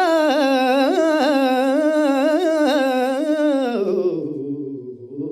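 A man singing a wordless alaap, the improvised vocal line of Indian classical singing: a long held line with quick wavering ornaments, which drops lower and quieter about four seconds in.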